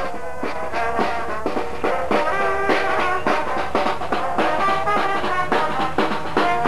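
Small marching band playing brass and drums: trumpet and trombone notes over a steady drum beat.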